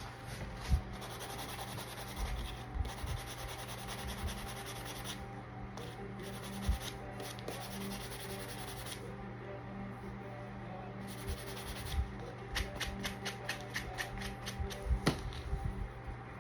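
Hand sanding a custom pen with sandpaper: long rubbing strokes of a second or two each, turning into quicker, shorter strokes, about four a second, in the last few seconds.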